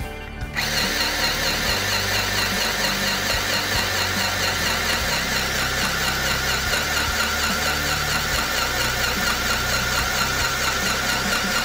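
Mini portable electric sewing machine running under foot-pedal control and stitching cloth: a steady motor sound with a fast, even needle clatter that starts about half a second in.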